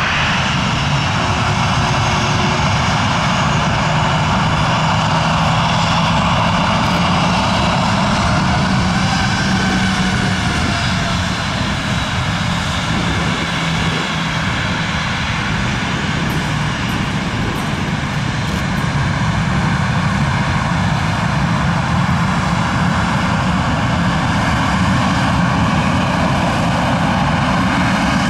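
Boeing 737-800's two CFM56-7B turbofan engines running at taxi power as the jet rolls past: a steady jet whine over a deep hum.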